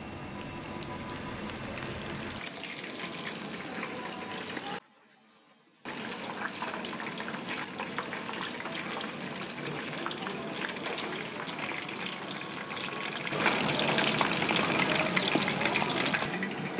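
Breaded kushikatsu skewers deep-frying in a tabletop fryer pot: hot oil sizzling and crackling steadily. The sound drops out for about a second around five seconds in, and the sizzling gets louder in the last few seconds.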